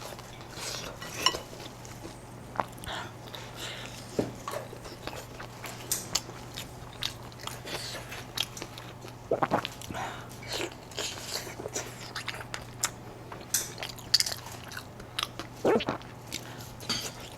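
A person biting and chewing roasted pig snout, with many small crunchy clicks and wet smacks spread irregularly throughout.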